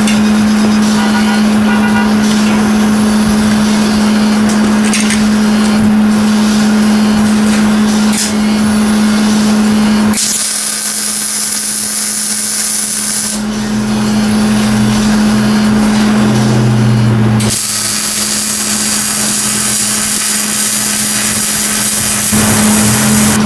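Electric arc welding on a steel rocket-stove feed tube: two runs of crackling sizzle, one about three seconds long near the middle and one about five seconds long towards the end, over a steady hum.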